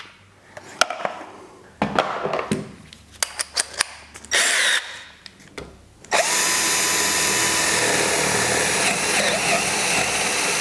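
Scattered clicks and knocks for about six seconds, then a hand-held drill starts abruptly and runs at a steady speed with an even motor whine. It is boring a 10 mm wood drill bit into Douglas fir.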